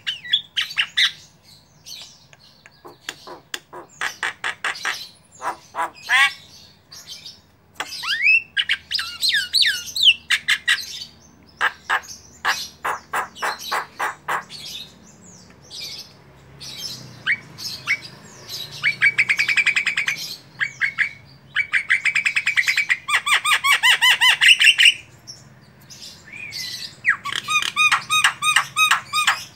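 Javan myna singing a long, varied song of short repeated harsh notes and sliding whistles, breaking in the second half into fast rattling trills.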